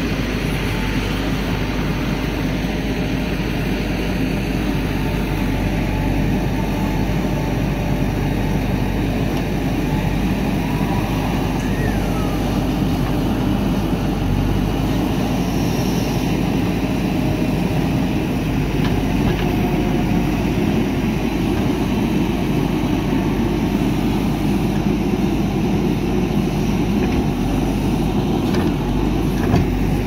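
JCB backhoe loader's diesel engine running steadily while it works the backhoe arm digging soil.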